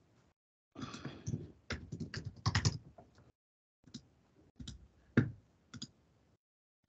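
Computer keyboard typing and clicks: a dense run of keystrokes in the first few seconds, then a handful of scattered single clicks, with dead silence between them.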